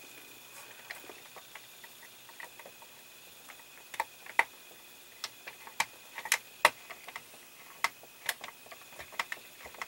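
Small screwdriver turning tiny screws into a plastic model's floor panel: irregular sharp little clicks and ticks of metal on screw and plastic, sparse at first and coming more often from about halfway through.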